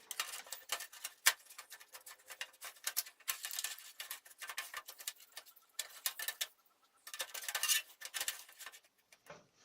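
Hard drive being fitted into the metal drive bay of a desktop PC case: rapid scratching, rubbing and clicking of metal on metal, with a sharp knock about a second in and brief pauses in the handling.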